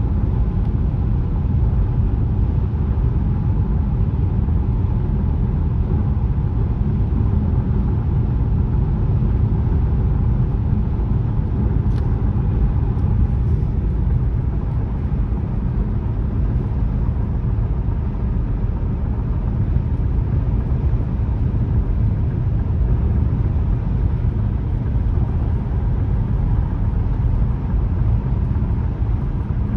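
Steady road and tyre noise with a low engine rumble, heard inside a car cabin while cruising on a highway.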